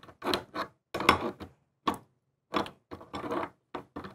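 Adjustable crescent wrench turning the bonnet nut off a quarter-turn faucet cartridge: a series of short, irregular metallic scrapes and clicks as the nut is worked loose.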